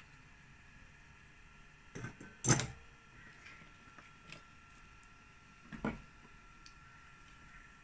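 A few light knocks and clicks of tools and parts being handled on a workbench during a circuit-board repair, the loudest about two and a half seconds in, over a faint steady high tone.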